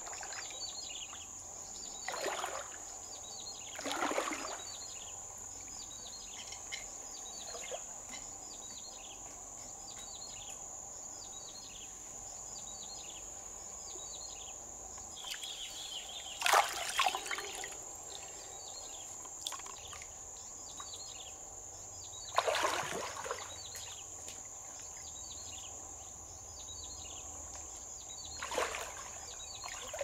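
Shallow river water splashing and sloshing as hands reach into it and feet wade through it, in a handful of separate splashes, the loudest about halfway through. Behind it runs a steady high-pitched drone, and a bird calls over and over with short falling notes.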